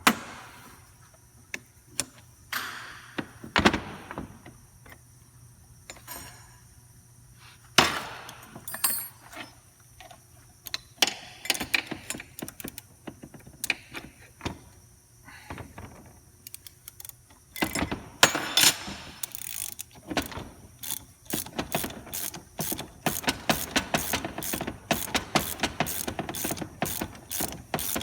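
Scattered metal clinks and knocks of tools on a hydraulic gear pump, then a hand ratchet wrench clicking in a steady rapid run, about three clicks a second, as it turns the pump's housing bolts.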